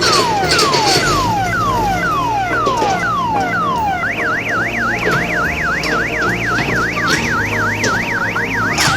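Electronic multi-tone siren of an odong-odong mini tourist train: falling whoops about twice a second, switching about four seconds in to a fast up-and-down warble, over a steady low drone.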